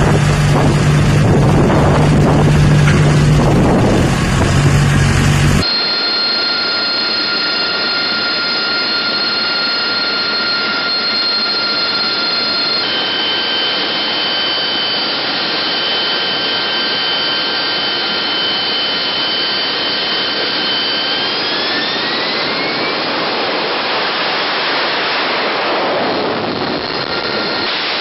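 AV-8B Harrier's Pegasus turbofan running with a steady high whine over a loud rush of jet noise, rising in pitch about three quarters of the way through as the engine spools up. For the first several seconds the sound is different: wind buffeting the microphone over a steady low engine hum.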